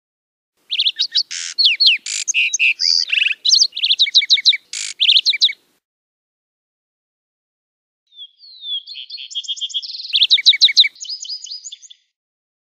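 Lark sparrow singing two song phrases: the first about four to five seconds long, the second starting about eight seconds in. Each is a rapid run of varied trills and sharp high notes.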